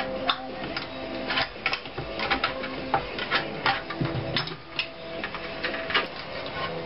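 A thin sheet-steel panel being handled and bent by hand on a workbench, giving irregular metallic clicks, taps and rattles.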